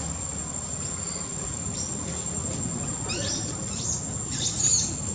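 Long-tailed (crab-eating) macaques giving short high-pitched squeals: a few about three seconds in and a louder cluster near the end, over a steady high whine.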